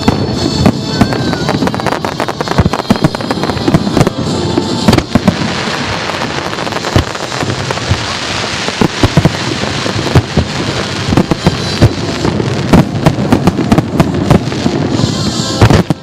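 Fireworks display: a rapid, irregular run of aerial shell bursts going off, with a thick spell of crackling in the middle.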